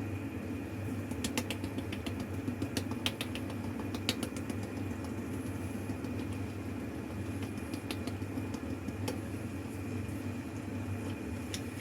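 Pasta sauce with chicken meatballs heating in a frying pan: scattered light ticks and pops, most of them in the first few seconds, over a steady low hum.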